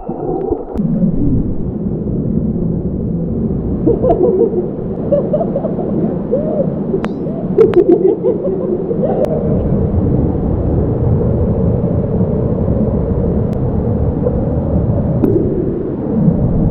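Rushing water at a waterfall, heard muffled and dull, with almost no high sound, and wobbling gurgles running through it.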